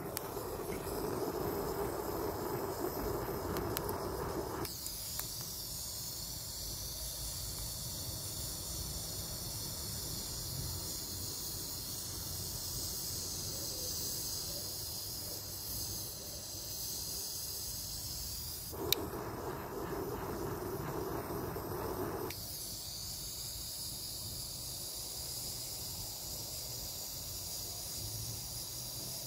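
A steady hiss. A lower, rougher rushing noise takes over for the first few seconds and again for a few seconds past the middle, with a single sharp click just as it returns.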